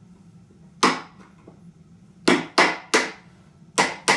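Hammer striking the end of a screwdriver set against the steel ring nut of a Vespa PX steering head, to drive the nut anticlockwise and loosen it. Six sharp metallic knocks with a short ring after each: one, then a quick run of three, then two more close together.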